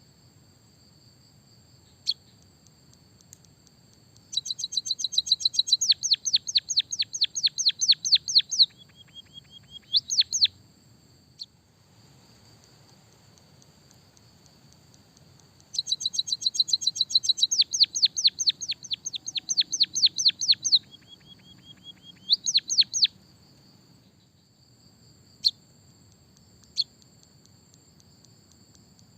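Songbird singing in two long runs of rapid, repeated high chirps, each several seconds long and ending in a few rising notes, with a few single chirps between. A steady high-pitched buzz runs underneath.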